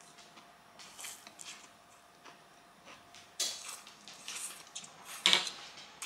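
Close-miked eating sounds: spicy instant noodles being slurped and chewed, in short wet smacks, the loudest about five seconds in.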